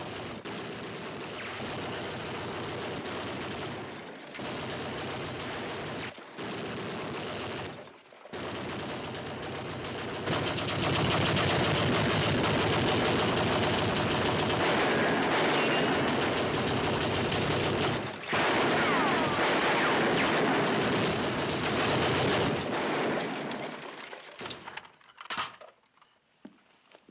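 Gatling gun firing long rapid bursts in a western film's soundtrack, with short breaks about 4, 6 and 8 seconds in. The firing is heaviest from about ten seconds in, pauses briefly, then breaks up into scattered shots and dies away near the end.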